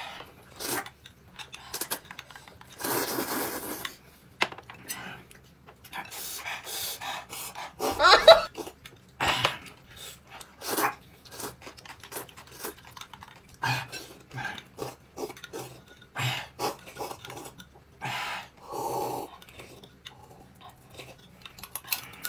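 Noisy eating: slurping, chewing and breathy sounds of enjoyment, with occasional clinks of dishes and cutlery. A short, loud voice-like exclamation comes about eight seconds in.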